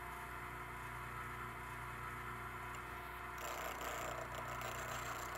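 Bench grinder motor running with a steady hum. About three and a half seconds in, a steel chisel bevel is pressed to the grinding wheel and a steady, hissy grinding of steel on the abrasive wheel sets in over the hum.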